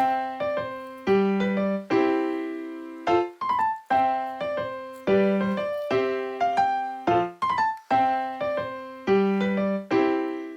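Background music: a piano or electric piano playing a repeating phrase of chords and single notes, each note struck and fading.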